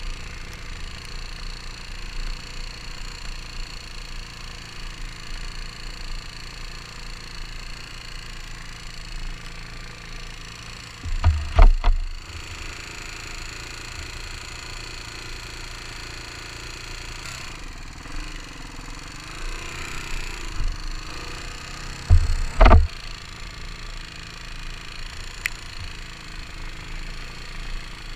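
Dual-sport motorcycle riding a gravel road: steady engine and road noise, with two loud thumps, about a third of the way in and again about two-thirds in.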